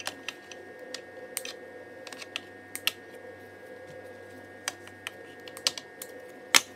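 Irregular light clicks and crinkles of plastic packaging being handled and snipped with scissors, with one sharper click near the end, over a steady background hum.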